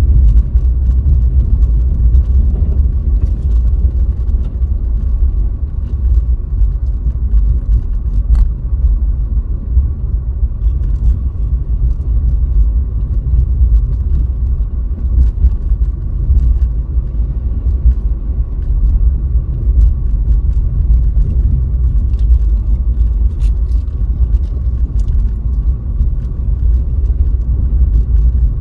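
Steady low road and engine rumble of a car driving on a snowy road, heard through a dashcam inside the car, with a few faint clicks scattered through it.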